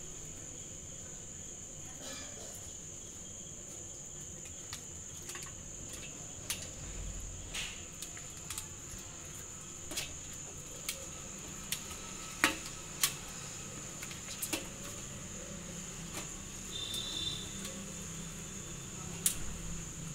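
Turmeric leaves handled and folded on a steel plate: soft rustling with scattered sharp clicks and ticks, a few louder ones in the second half. A steady, high cricket chirring runs underneath.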